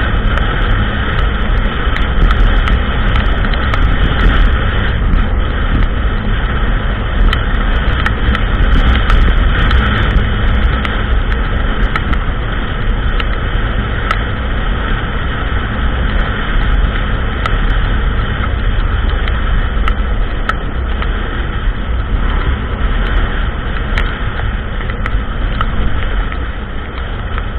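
ATV engine running as the quad rides along a trail, a steady drive noise with scattered small clicks and rattles. It gets quieter near the end as the throttle eases.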